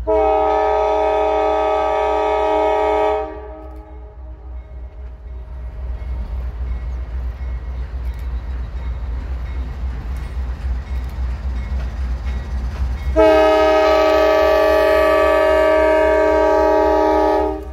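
Diesel locomotive air horn, a chord of several notes, sounding two long blasts about ten seconds apart: the first about three seconds, the second about four and a half. Between them a steady low rumble from the locomotive and train grows louder as it draws near and passes.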